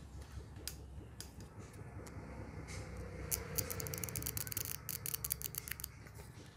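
Small hand tools working on a mobile phone: a quick run of fine clicks and scratches in the second half, over a steady low hum.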